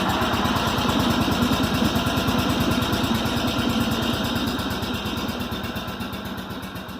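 A small engine idling with a steady, rapid firing beat. It cuts in abruptly and fades out over the last couple of seconds.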